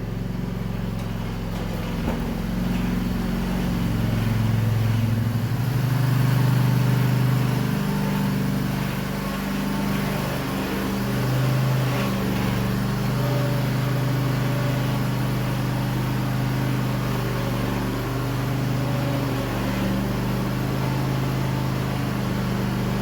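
Snapper 360z zero-turn mower's engine running steadily, its pitch shifting up and down several times as the mower is driven.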